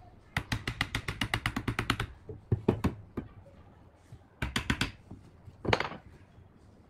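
A hammer knocking on the wooden frame of a handmade tricycle: a fast run of light taps, about ten a second, then three short groups of harder strikes.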